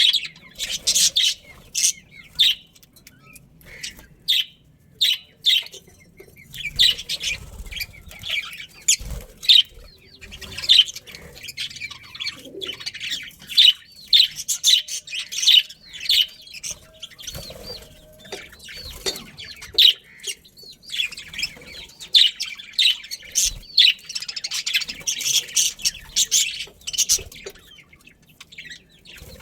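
Budgerigars chirping, a continuous run of many short high chirps overlapping one another.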